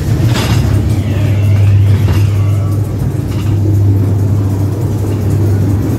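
Ghost train ride car rolling along its track: a loud, steady low rumble, with a few knocks near the start.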